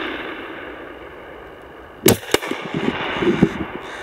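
Over-and-under shotgun firing at a crow overhead: one loud report about two seconds in, with a second sharp crack a quarter second later.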